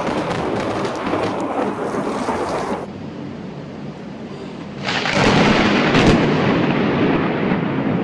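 Heavy rain pouring, with thunder rumbling; about five seconds in a loud thunderclap breaks, with a sharp crack about a second later.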